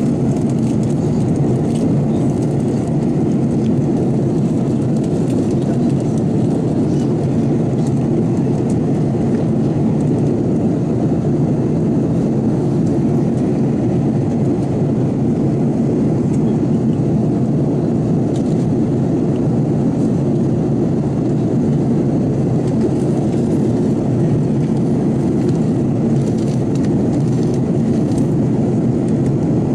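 Steady cabin drone of an Airbus A330-200 airliner in flight, engine and airflow noise heard from inside the cabin as an even, low rumble that doesn't change in level.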